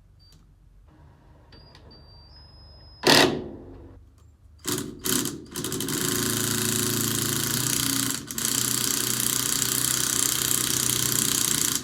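Impact gun hammering a nut loose: a loud clank, two short trigger bursts, then a long run of rapid hammering with a brief break about halfway through.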